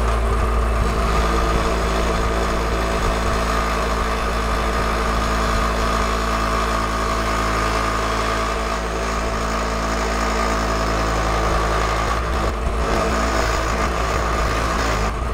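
Drill press running with a small polishing wheel in its chuck while an aluminum panel is held against the spinning wheel to polish it: a loud, steady motor hum and whir.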